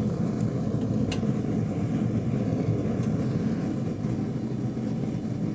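Gas torch flame running with a steady roar while it heats metal to red hot. A faint click about a second in.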